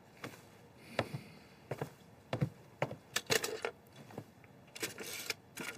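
Old candlestick telephone being handled: a string of light, irregular clicks and knocks, some in quick little clusters.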